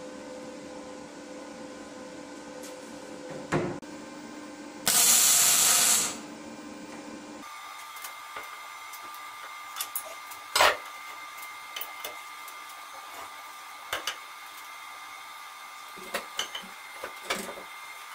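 Wire-feed (MIG) welder laying a tack weld on steel: a loud burst of welding noise lasting just over a second, over a steady hum. Afterwards scattered clicks and knocks of metal being handled.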